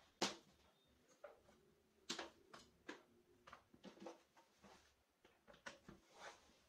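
Light knocks and clicks of wood and tools being handled on a workbench: a sharp knock just after the start, another about two seconds in, then scattered lighter taps.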